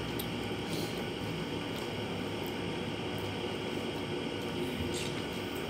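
Steady room hiss and hum, with a few faint, soft clicks and smacks of eating with the fingers from a plate.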